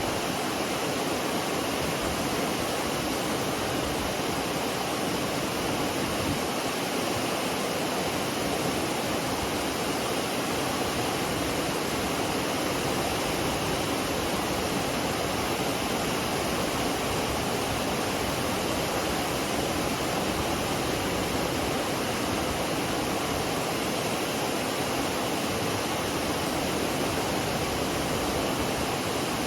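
McCloud Falls pouring steadily: an even, unbroken rush of falling water.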